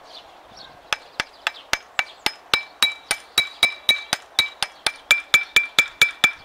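A hammer tapping steadily on a steel hub part of a KRN-2.1B rotary disc mower, about four blows a second, each blow ringing with a clear metallic tone. The tapping starts about a second in.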